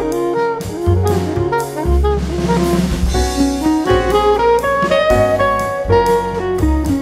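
Instrumental background music, jazz-like, with a melody line over bass and a drum beat.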